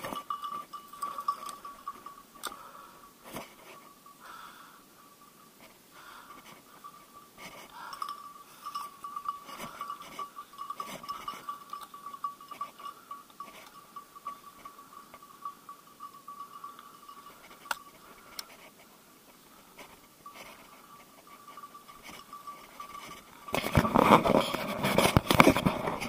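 Footsteps pushing through dry bracken and undergrowth, with scattered crackles and twig snaps, under a faint steady high tone. Near the end the brush scrapes loudly right against the microphone for a couple of seconds.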